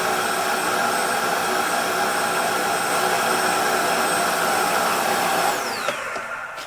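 Electric secondary air injection pump of a 2007 Ford Focus, jumped with a relay, running with a steady whine. About five and a half seconds in it is switched off and its pitch falls as it winds down. The diverter valve it feeds stays shut even with vacuum applied, so the valve has failed.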